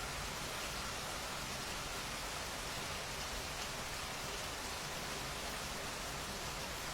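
Steady rain falling: an even, unbroken hiss with no single drops standing out.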